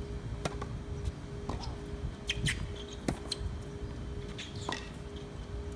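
Tennis rally on a hard court: sharp, separate pops of racket strings striking the ball and the ball bouncing, a few seconds apart.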